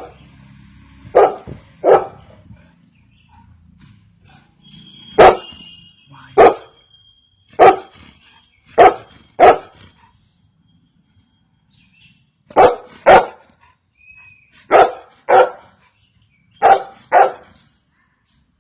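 Golden retriever barking: about a dozen loud, sharp barks, mostly in quick pairs, with pauses of a second or two between the groups.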